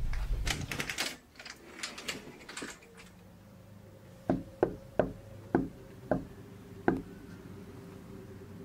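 Knuckles knocking on a wooden front door: six sharp knocks over about two and a half seconds, unevenly spaced, the last after a short pause. Light scuffs and rustles come in the first few seconds before the knocking.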